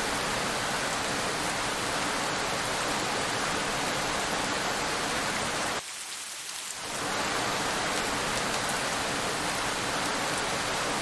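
Steady rain falling on a road, an even dense hiss that dips briefly about six seconds in and then comes back to full strength.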